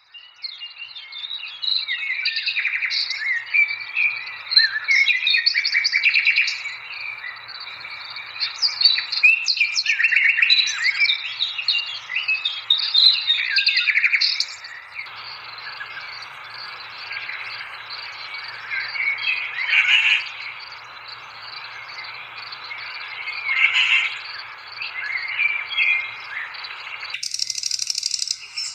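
Many birds chirping and trilling in quick overlapping calls over a faint steady hiss of rural outdoor ambience. The background shifts abruptly about halfway through and again near the end.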